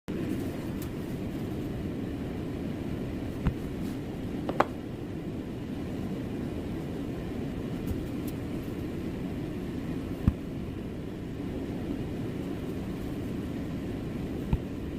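A steady low rumbling noise with four short, sharp knocks scattered through it.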